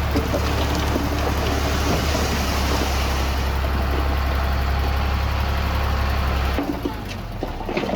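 Diesel engine of heavy earthmoving machinery running steadily with a deep, low drone, with scattered clanks and knocks over it. The drone drops off about six and a half seconds in.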